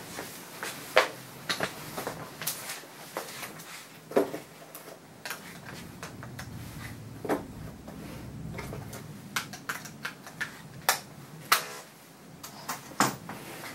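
Irregular light clicks and taps with a few louder knocks, scattered unevenly, some coming several in quick succession.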